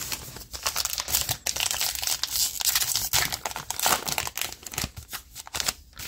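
Sealed wrapper of a baseball card pack being torn open and crinkled by hand: a dense run of crackling and tearing that eases off near the end.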